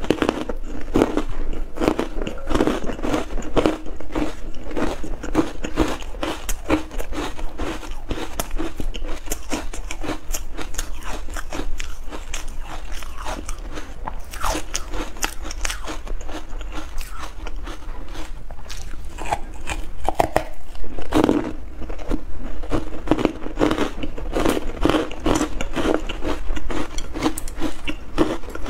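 Ice cubes coated in matcha powder being bitten and chewed close to the microphone: a steady run of crunching and crackling bites.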